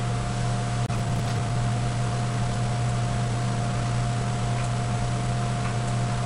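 Steady low hum with a thin higher tone under an even hiss, with a faint tick about a second in.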